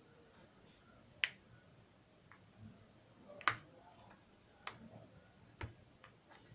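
Four sharp clicks at irregular intervals, from small repair tools and plastic phone parts being handled and set down.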